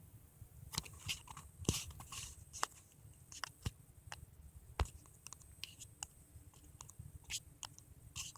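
Mother cat chewing and licking just after giving birth: faint, irregular wet clicks, smacks and crunches.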